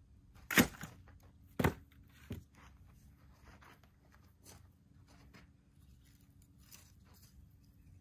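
Pieces of split firewood set down hard on a woodpile: two sharp wooden clacks about a second apart, then a softer knock.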